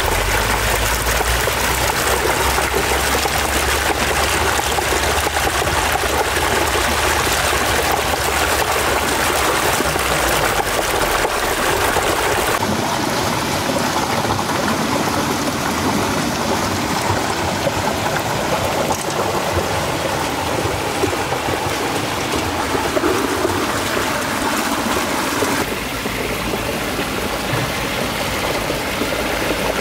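Steady rush of water flowing through a miniature concrete dam model, through its turbine well and out of its outlet openings. The water sound changes abruptly twice, about a third of the way in and near the end.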